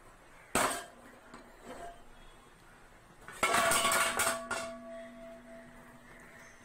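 Steel cooking pots being handled: a single sharp knock about half a second in, then a clatter of metal-on-metal clanks past the middle, leaving a ringing note that fades away.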